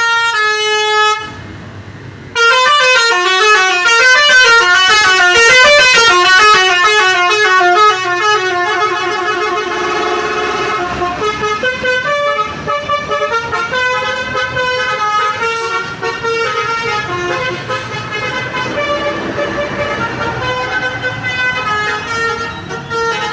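Basuri V3 telolet horn, a multi-tone vehicle horn, playing a fast tune of quickly alternating notes. It pauses briefly about a second in, then comes back loud, and after about eight seconds carries on a little softer over steady background noise.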